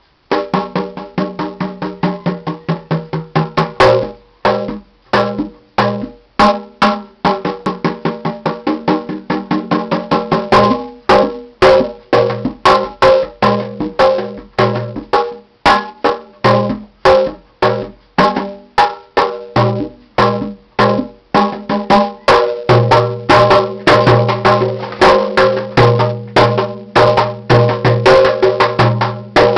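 Hand-drumming jam on a water-bottle drum with bongos, djembes, a wooden bongo and a cajon: a fast, busy pattern of slaps and pitched drum tones that starts suddenly. Deeper drum tones come in stronger about three quarters of the way through.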